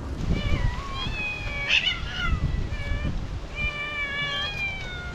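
Several stray cats meowing, their calls overlapping and repeating, as they beg to be fed. A steady low rumble runs underneath.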